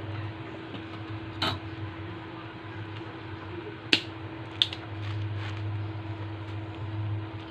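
A few sharp clicks of tools being handled at the workbench, the loudest about four seconds in, over a steady low electrical hum.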